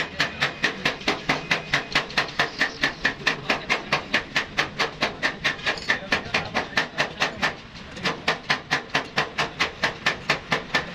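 Hammer blows struck in quick, even succession, about four a second, pausing briefly about three-quarters of the way through before carrying on.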